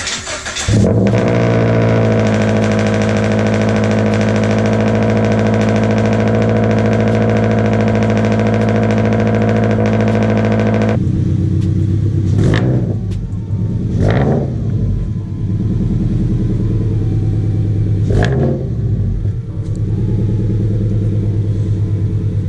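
Scion FR-S's flat-four boxer engine, breathing through unequal-length headers, a catless front pipe and a dual-tip muffler delete, starts up about a second in and holds a steady fast idle. About eleven seconds in it drops to a lower, choppier idle and is blipped three times, each rev rising and falling quickly.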